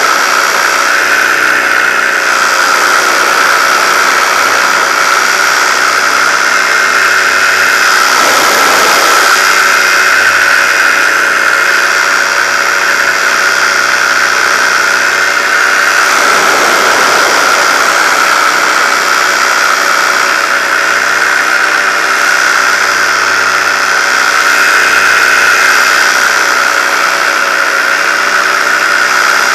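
Paramotor engine and propeller running steadily in powered paragliding flight: a loud, even buzzing drone with a high steady whine.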